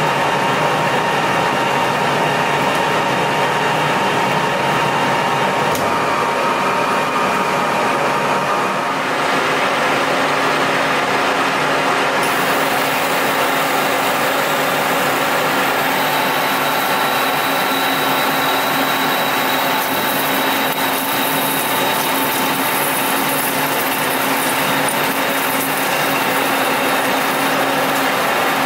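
Colchester metal lathe running steadily under power, its spindle and gear drive giving a continuous hum with several steady tones while the tool cuts a steel bar for a half-inch BSW T-bolt. The pitch of the hum shifts about nine seconds in and again a few seconds later.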